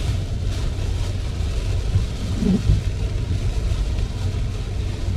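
Car driving in the rain: a steady low rumble of road and engine noise under a light rain hiss. About halfway through, the windshield wiper sweeps once with a brief pitched squeak from its stiff blade, on a repeat of about every three seconds.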